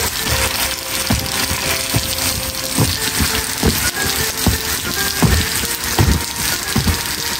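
Water spray pattering and hissing onto a trampoline mat while a child bounces on it, with a dull thump roughly every second. Background music with held notes plays over it.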